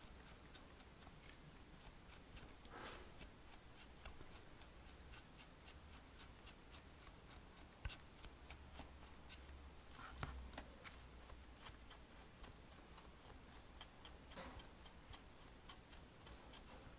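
Faint scratching of a steel felting needle drawn through the wool fur of a needle-felted cat: a run of small, quick ticks with a few soft rustles.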